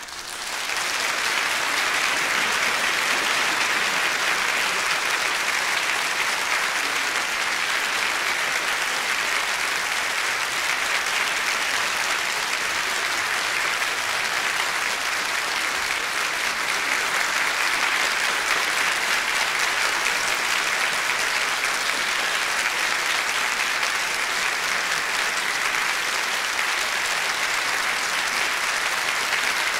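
Large audience applauding, swelling up within the first second after the final chord has died away, then holding at a steady level.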